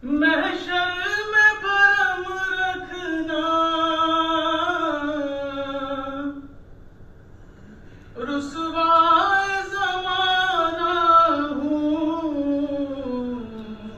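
A man reciting an Urdu naat unaccompanied into a microphone: two long melodic phrases of drawn-out, ornamented notes, separated by a pause of about two seconds.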